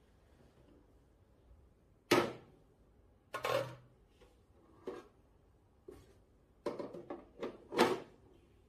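Clear plastic food steamer tiers and lid being lifted off and handled, giving a series of knocks and clatters, the loudest about two seconds in and near the end.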